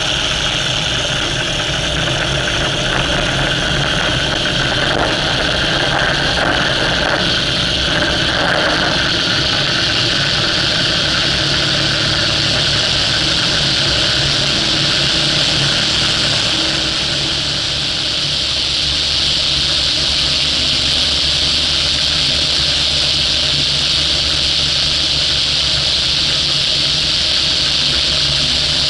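A light aircraft's engine and propeller running steadily, with a strong rushing hiss over a low hum. About 17 seconds in the level dips briefly, then the hiss comes back stronger.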